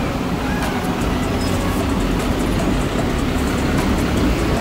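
Diesel engine of a Mitsubishi Fuso garbage truck running close by, a steady low rumble.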